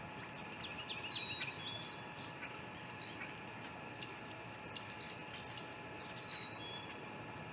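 Scattered short, high bird chirps, some sliding in pitch, over a steady faint background hum.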